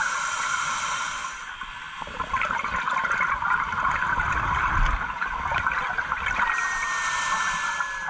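Scuba regulator breathing underwater: a hiss of inhaling about a second in and again near the end, with exhaled bubbles gurgling in between. Near the end a slowly falling synth tone sets in.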